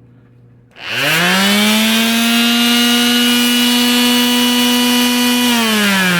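Skil 7290-01 quarter-sheet palm sander (2-amp electric motor) switched on about a second in, running up within a fraction of a second to a steady, loud buzzing whine. Near the end it is switched off and starts to wind down, falling in pitch.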